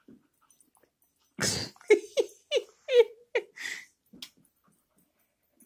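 Dogs squabbling: a harsh snarl, then a quick run of five or six short, sharp yaps.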